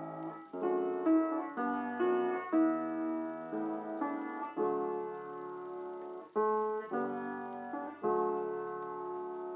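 Background piano music: slow sustained chords, each struck and left to ring before the next.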